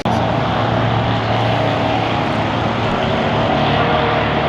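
A vehicle engine running at a steady speed, a constant low drone.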